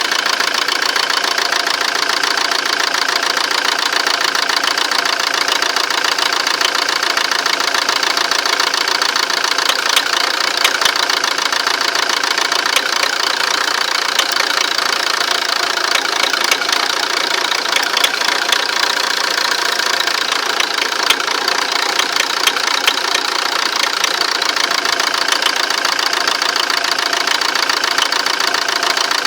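Fiat Doblo 1.9 JTD four-cylinder turbodiesel running steadily at idle with a rhythmic knock through the engine noise. The owner takes the knock for a fuel injector, most likely.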